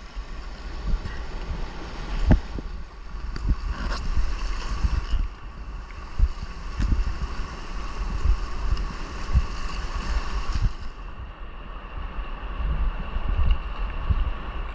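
Whitewater rushing around an inflatable kayak running a rapid, with wind buffeting the microphone. Occasional knocks, the loudest about two seconds in.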